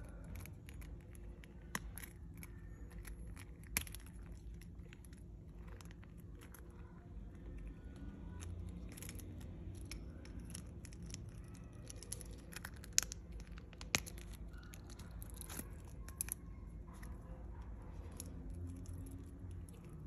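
A steel Reverso-style folding clasp and leather watch strap being handled: soft rubbing of the leather with scattered small metal clicks, the sharpest about two, four, thirteen and fourteen seconds in.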